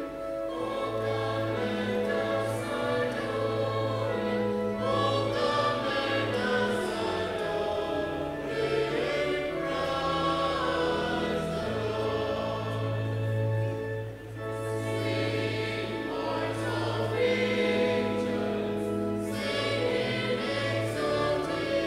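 Mixed church choir of men and women singing together, over long-held low accompaniment notes. The sound dips briefly between phrases a little past the middle.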